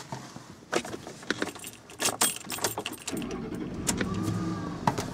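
Ignition keys jangling and clicking in the steering-column lock as the key is put in and turned, then the Ford F-150 pickup's engine starts about three seconds in and settles into a steady idle.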